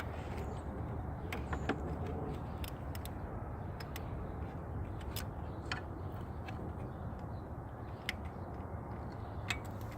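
Hand tools working on metal under a car's hood: scattered sharp clicks and clinks of sockets and a ratchet on bolts, irregularly spaced, over a steady low rumble.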